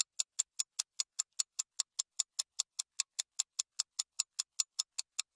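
Clock-ticking sound effect, fast and even at about five ticks a second, counting down the time to answer a quiz question.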